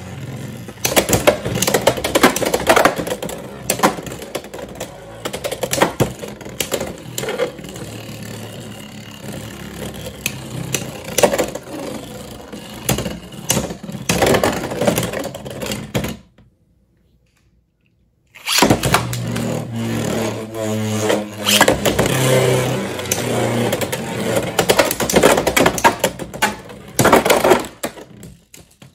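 Beyblade X spinning tops whirring on a plastic stadium floor, with frequent sharp clacks as they collide and strike the stadium wall. The sound breaks off to silence for about two seconds a little past halfway, then the whirring and clacking start again.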